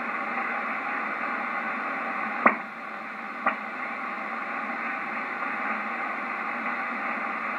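Hiss of band noise from a Yaesu FT-990 HF transceiver receiving single-sideband voice on the 15-metre band, with no signal on the channel between transmissions. Two sharp clicks come through, about two and a half seconds in and again a second later.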